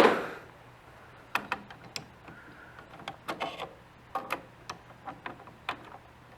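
Screwdriver and small screws working on the plastic and metal of an all-in-one PC's case: a sharp knock at the start, then scattered short clicks and taps.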